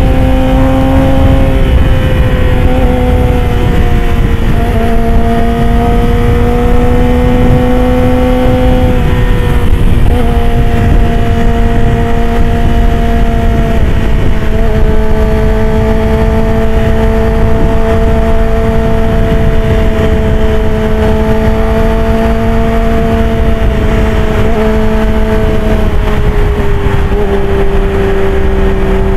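Yamaha R6's inline-four engine running at steady high revs at expressway speed, with heavy wind noise rumbling over the microphone. The engine note holds a level pitch that sags slightly in small steps and drops a little lower near the end.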